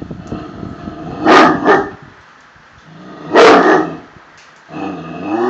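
Tosa inu dogs barking over a fence: two barks in quick succession just over a second in, a single bark a couple of seconds later, then a longer drawn-out pitched dog vocalisation starting near the end.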